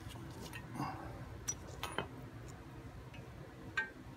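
A few faint, scattered metal clicks and taps as the small parts and fittings of a clutch master cylinder are handled.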